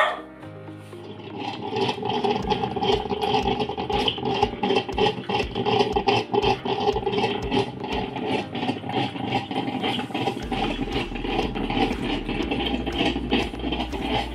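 Ramtons drip coffee maker brewing: a steady tone with many irregular crackles and gurgles as the water heats and runs through the machine.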